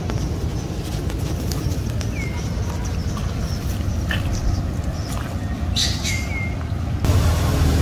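Steady low rumble of wind on the microphone outdoors, with a few short high chirps, two of them in quick succession about six seconds in.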